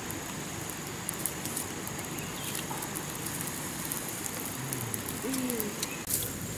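Wood campfire crackling with scattered sharp snaps over a steady hiss. A couple of short, low, falling calls come about five seconds in.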